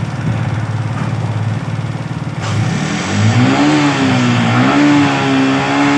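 Yamaha R15's single-cylinder 155 cc engine idling with an even low beat, then revved from about three seconds in: the pitch climbs, falls back briefly and climbs again, then is held at higher revs.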